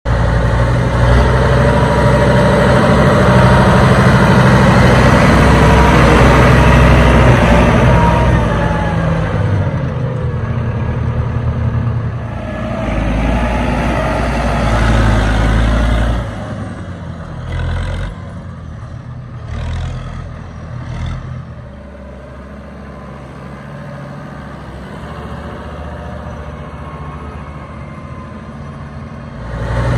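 Kubota M125 tractor's diesel engine running at idle, with a steady low drone. The engine speed eases down a little about eight seconds in, and the sound grows quieter over the second half.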